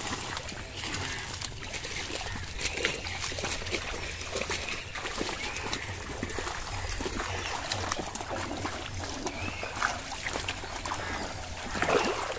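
Feet splashing and sloshing through shallow water and trampling water hyacinth, with many small splashes and rustles.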